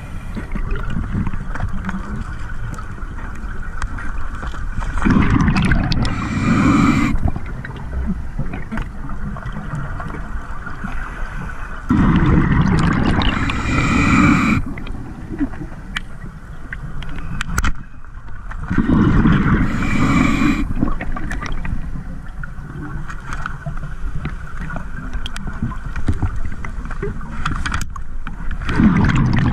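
Scuba diver breathing through a regulator underwater: a continuous rumble with a louder gush of exhaled bubbles about every seven seconds, four times.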